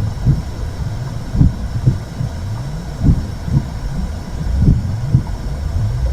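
Womb sound: a steady low, muffled whooshing rumble with a slow heartbeat pulse, double beats about every second and a half.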